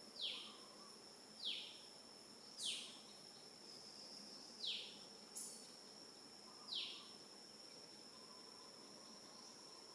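A steady, high-pitched insect drone, like crickets or cicadas, with five short falling chirps over its first seven seconds or so.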